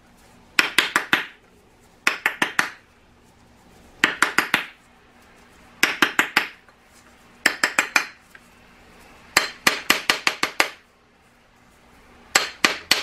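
A metal spoon tapping around the outside of a 3D-printed plastic bath bomb mold, in about seven quick bunches of four to eight sharp taps, one bunch every couple of seconds. The tapping loosens the packed bath bomb from the mold's cups before they are lifted off.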